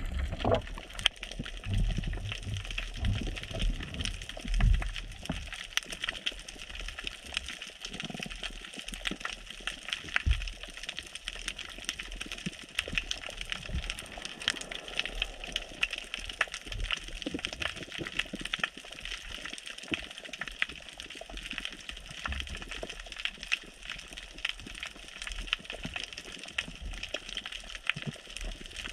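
Underwater sound over a rocky reef: a steady crackle of many tiny clicks, with low water rushes and thumps in the first few seconds.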